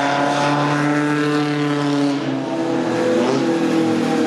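Pre-1935 Bugatti Grand Prix racing car driving past under power, its engine note steady at first. About two seconds in the note breaks and changes pitch, then climbs again.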